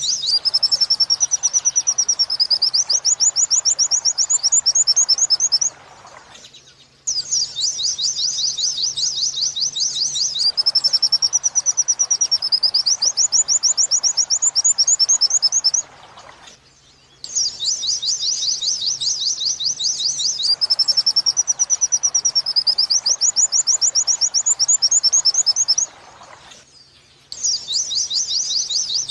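Recorded white-eye (pleci) song in the 'wit-wit sambung kunti' style, played as training material for pet songbirds: rapid high trills and chattering phrases, the same stretch of song looping about every ten seconds with a brief pause between repeats.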